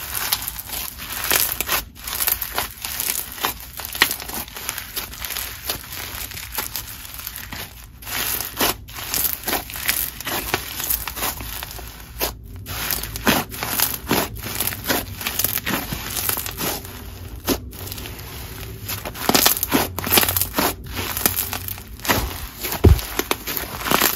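Crunchy snow fizz slime, packed with small clay pieces, being squeezed, pressed and stretched by hand, giving a dense run of crackles and crunches that grows louder near the end.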